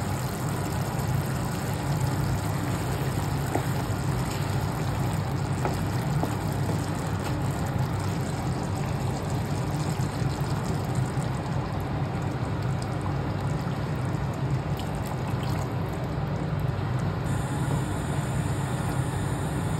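Chicken curry simmering and bubbling in a pan on a gas stove, over a steady low hum.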